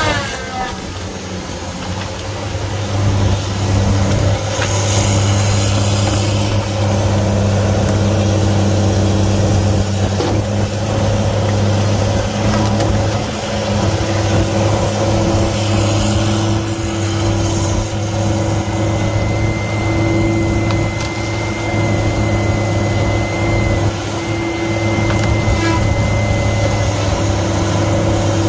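Feller buncher's diesel engine running steadily. For several seconds in the second half a thin high whine sounds over it.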